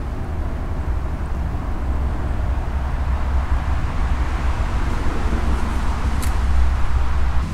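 Wind buffeting the microphone by the lakeshore: a steady low rumble with a rushing that swells a little near the end, and one short click about six seconds in.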